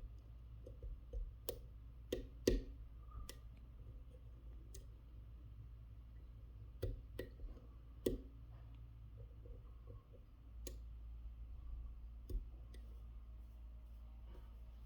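Lock pick working the pin-in-pin stacks of a Mul-T-Lock Interactive cylinder: faint, irregular metallic clicks, with a few sharper ones in small clusters.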